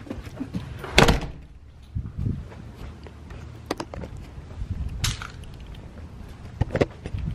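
A house front door shut with one loud bang about a second in, followed by footsteps on pavers and a few light clicks and taps.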